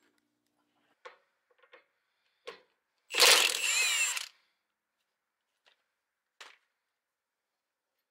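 An impact wrench runs in one burst of about a second, spinning a nut off the front steering linkage. A few light clicks and knocks of tools on metal come before and after it.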